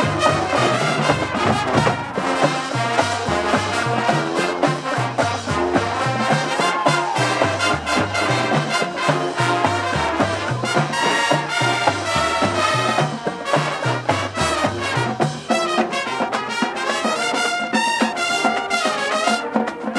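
College marching band playing a big-band swing arrangement, loud brass with trumpets and trombones over a driving, repeating low riff and percussion. The low riff drops back about three-quarters of the way through while the brass carries on.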